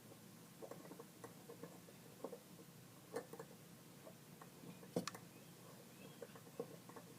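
Faint, irregular clicks and ticks of a hand tap being turned in a tap wrench, cutting threads through metal as it nears breaking through, with a slightly sharper click about five seconds in.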